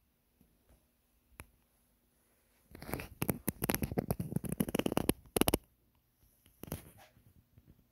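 Rustling, scraping handling noise from something rubbing against a phone's microphone while it is carried. It starts suddenly about three seconds in and lasts about three seconds, with a shorter burst near the end.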